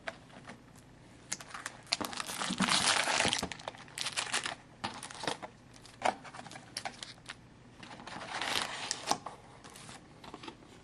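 Foil-wrapped trading card packs crinkling and rustling as they are handled and taken out of their cardboard box, in two longer stretches with scattered light taps and clicks between.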